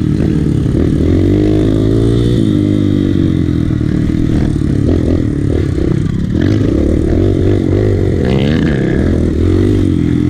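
Kawasaki KLX150 dirt bike's single-cylinder four-stroke engine running under way, its pitch rising and falling as the throttle is opened and closed. Knocks and rattles from the bike over rough ground around the middle.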